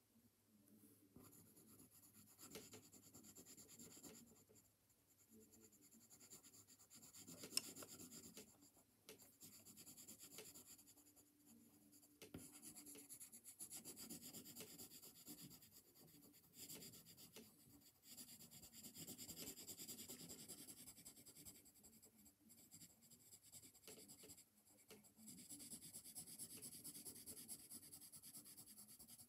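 Pencil scratching and rubbing across paper in repeated strokes, faint and coming in swells, with one sharp click about seven seconds in.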